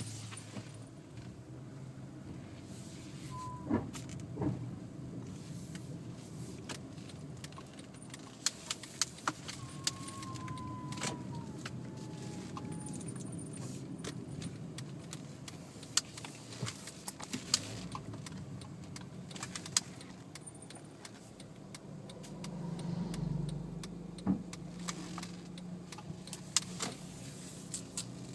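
Honda Fit GE6 pulling away cold: a steady low running hum with scattered sharp clicks and rattles and a few brief high squeaks, the low hum swelling for a moment about two thirds of the way through. This is the abnormal noise the car makes when started off cold, which several dealer visits have not cured.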